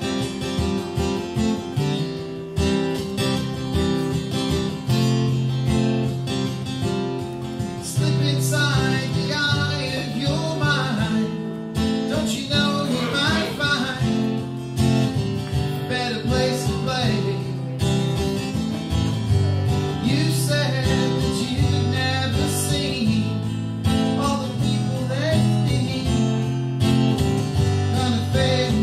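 Acoustic guitar strummed as a song's intro, with a man's voice singing over it from about eight seconds in.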